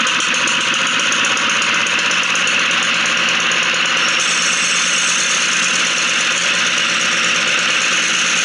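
Baja Doodlebug 97cc single-cylinder four-stroke mini bike engine running steadily with a fast, even chatter, freshly brought back to life after its carburetor was cleaned and its mixture screw adjusted.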